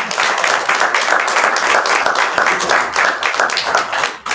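A small audience applauding, many hands clapping densely, then dying down near the end.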